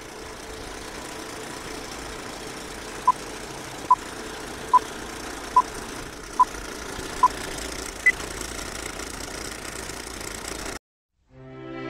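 Old-film countdown leader sound effect: a steady film-projector whirr with crackle, and six short beeps a little under a second apart, then one higher beep. It cuts off suddenly near the end.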